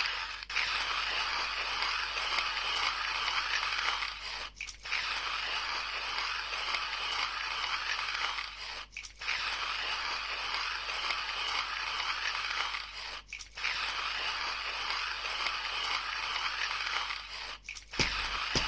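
Coffee beans crunching in a Timemore C2 hand grinder as it is cranked steadily, with brief breaks about every four and a half seconds. A few sharp clicks come near the end.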